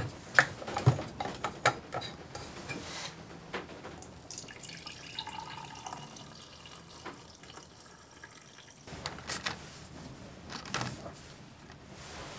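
A drink poured from an insulated steel bottle into a ceramic mug, a steady stream lasting about five seconds from around four seconds in. Before it come several sharp clicks and knocks of the bottle and mug being handled, and a couple more knocks follow near the end.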